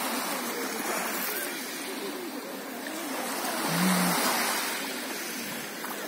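Small sea waves washing and breaking onto a pebble shore, swelling loudest about two-thirds of the way through.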